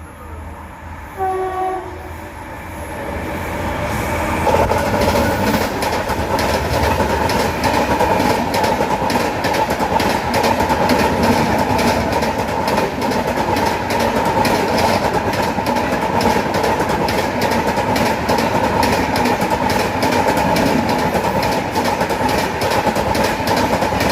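A train horn gives one short blast about a second in. Then a passing train grows loud within a few seconds and runs on steadily, its wheels clacking rapidly over the rail joints.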